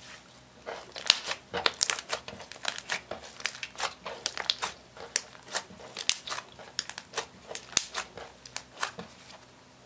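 Pink eyeshadow-tinted clear slime being kneaded and squeezed by hand, giving an irregular run of sharp, wet clicks and pops as trapped air bursts. It starts about a second in and stops near the end.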